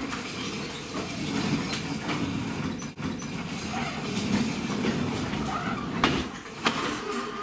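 Toy car running around the house: a steady motor-and-wheel rumble on the floor, with a couple of sharp knocks near the end.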